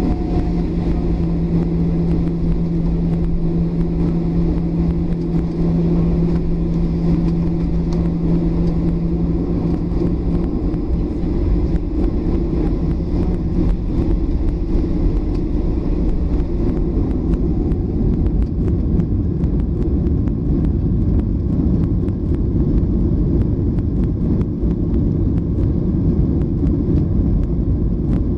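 Cabin noise inside a Boeing 737-800 moving on the ground: a steady, loud rumble of its CFM56 engines and rolling gear. A low steady hum fades out about halfway through.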